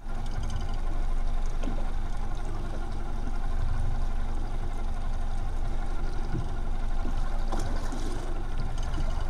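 Steady low mechanical hum and rumble aboard a small fishing boat at sea, with a faint wash of water.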